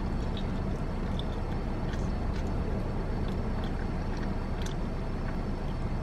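Steady low vehicle rumble heard from inside a parked car's cabin, with faint scattered clicks and smacks of chicken being pulled off the bone and chewed.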